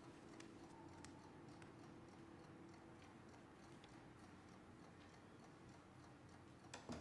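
Near silence: quiet room tone with faint soft ticks roughly once a second over a low steady hum, and a short soft knock near the end.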